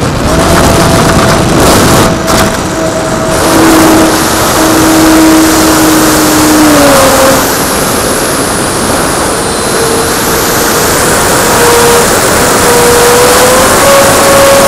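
Radio-controlled Me 163 Komet model in flight: heavy wind rush over the on-board camera's microphone, with the steady whine of its electric motor and propeller. The whine's pitch drops about seven seconds in and climbs again near the end as the throttle changes.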